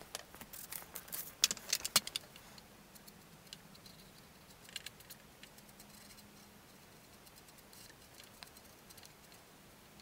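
Light clicks and taps in the first two seconds as a Molotow liquid chrome paint pen is uncapped and its nib set against a toy's plastic bumper, then near silence with a few faint ticks as the paint is dabbed on.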